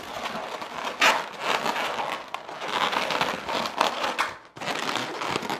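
Thin latex twisting balloons squeaking and rubbing against each other and against hands as they are twisted and fitted together: an irregular run of crinkly rubbing squeaks.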